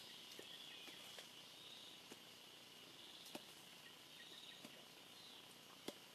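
Faint forest ambience: insects trilling in a high, wavering band, with a few scattered sharp clicks, the loudest one near the end.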